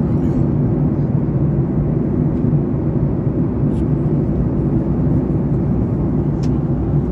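Steady low rumble of jet engines and rushing air inside an airliner cabin in flight at altitude.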